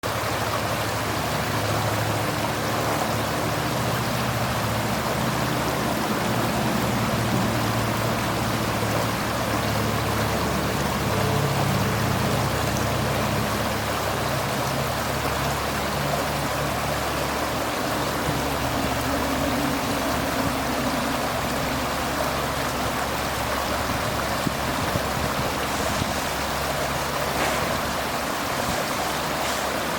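Creek water running steadily over rocks, a continuous rushing and babbling with a low rumble underneath.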